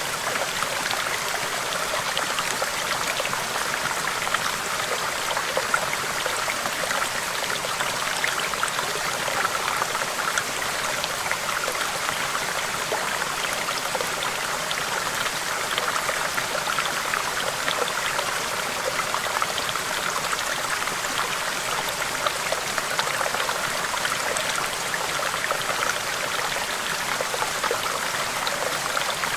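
Small stream babbling over rocks: a steady flow of water with many small splashes and drips scattered through it.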